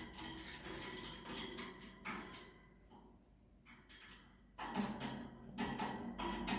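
Cockatiel clambering about a wire cage, the bars clicking and rattling in short bursts, with a pause of about two seconds in the middle.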